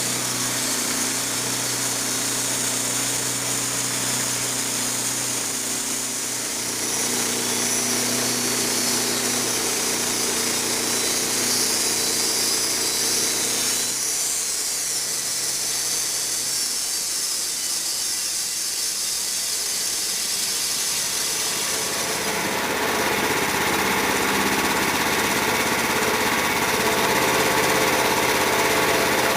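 Sawmill engine running steadily through a cut in soft maple, its note shifting several times as the load changes, with a hiss of sawing over it.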